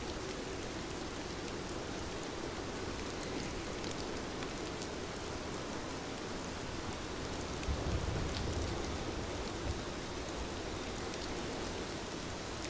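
Steady rain falling on a surface, with scattered drops ticking through it. A brief low rumble swells up about eight seconds in.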